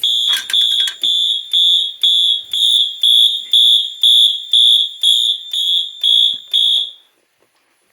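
Fire alarm horn sounding a loud, high, pulsing tone about twice a second, then cutting off about seven seconds in. The fire alarm system has gone into alarm after a manual pull station was pulled.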